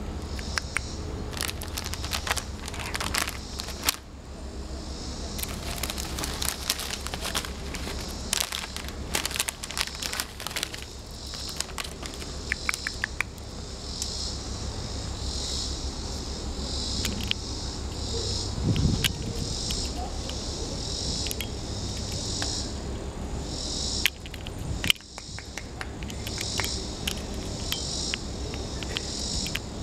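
Insects chirping in a steady pulsing drone high in pitch, over a low steady hum. Bursts of crackly clicking come and go through the first half.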